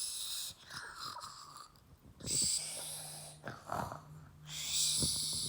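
A child imitating her father's snoring: three noisy, hissing snore breaths about two seconds apart.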